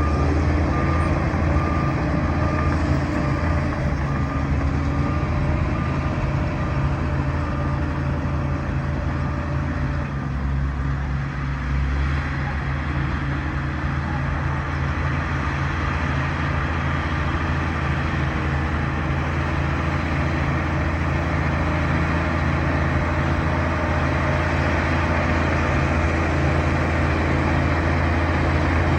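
Bulldozer's diesel engine running steadily. A reversing alarm beeps for about the first second.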